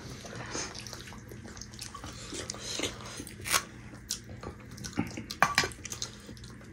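Close-up wet eating sounds: scattered lip smacks and chewing of soft dhido and nettle soup eaten by hand, a few sharp wet clicks spread through.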